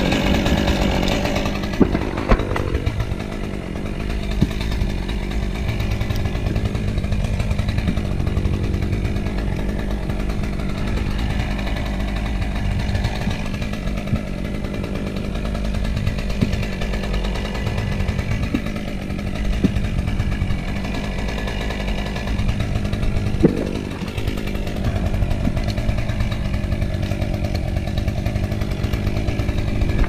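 Gas chainsaw running steadily at high revs, with a few sharp knocks along the way.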